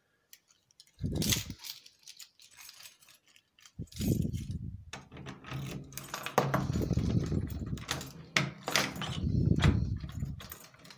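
Handling noise of a phone camera moved close along a wooden door: a brief rustle about a second in, then steady rubbing and rustling from about four seconds in, with several sharp metallic clicks.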